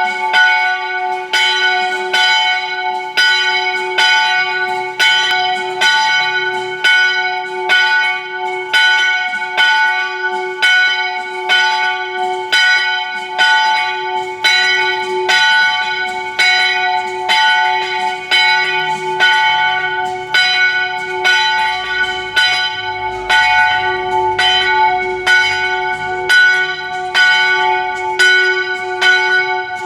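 A single church bell, about 150 kg and brought from France, struck again and again about once a second in a steady rhythm, each stroke's ringing carrying on into the next.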